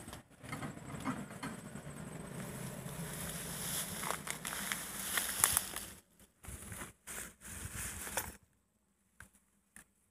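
Handling noises: plastic crinkling, rustling and scraping with small knocks, as fishing tackle is taken from a bag. It is over a steady low rumble for the first half, then comes in short bursts with near-silent gaps.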